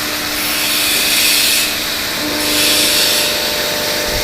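A machine running: a steady hiss with a faint hum beneath, the hiss swelling and easing about every two seconds.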